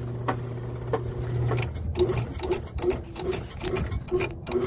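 Seamless gutter machine running as it feeds gutter coil through its forming rollers: a steady motor hum with scattered clicks, which gives way about two seconds in to a regular knocking two or three times a second.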